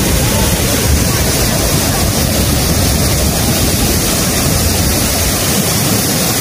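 Steady, loud rush of a waterfall.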